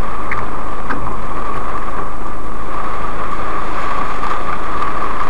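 Heavy cloudburst rain drumming on a car's roof and windshield, heard from inside the car: a loud, dense, steady hiss.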